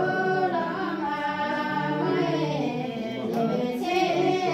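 Singing over music, with long held notes.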